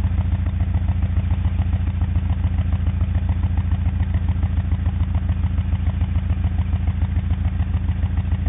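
1991 Honda Accord's four-cylinder engine idling roughly with an even, pulsing exhaust beat, which the owner suspects is an ignition problem or a bad tank of gas.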